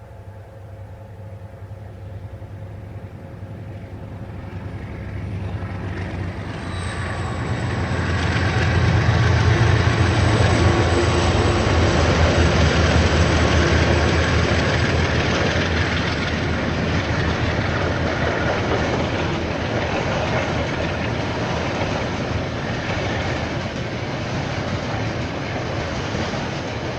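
A KiwiRail diesel train approaching and passing close by: a low rumble builds over about the first ten seconds to its loudest, then carries on steadily as the wagons roll past.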